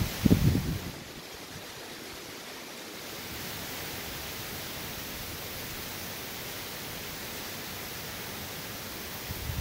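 Steady hiss of hurricane rain and wind. Low rumbling gusts of wind buffet the microphone in the first second and again near the end.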